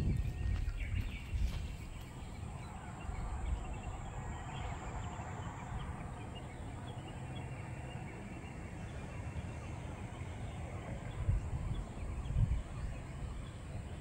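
Outdoor ambience: wind buffeting the microphone as an uneven low rumble, with faint, scattered bird calls and a thin steady high tone.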